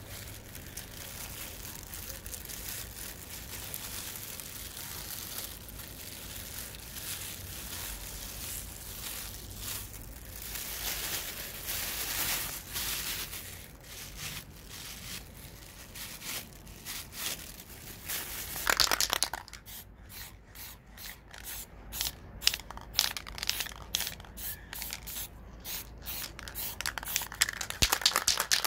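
A thin plastic bag crinkling as it is crumpled and pressed onto freshly sprayed paint to print a texture. In the last third it turns into separate dabs, about two or three a second. A short, louder hiss comes about two-thirds of the way in.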